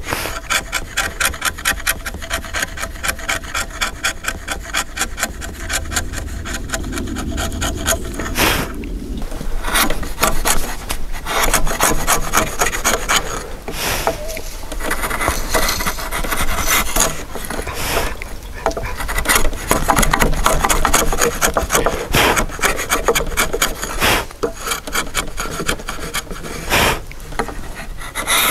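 Hanok chisel pushed by hand, paring thin shavings off the face of a wooden beam: a fast run of short scraping strokes, then longer slicing strokes with short pauses between them.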